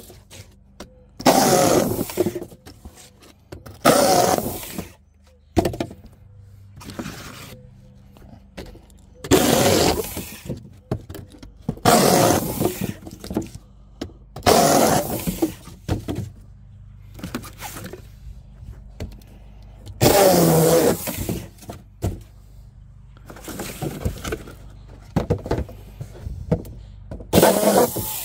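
Power cutting tool slicing through cardboard in short, noisy bursts of about a second each, about seven times, with pauses of a few seconds between them.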